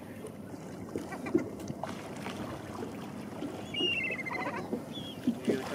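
Steady low rumble and water wash of a boat drifting at sea, with a short high gull call about four seconds in.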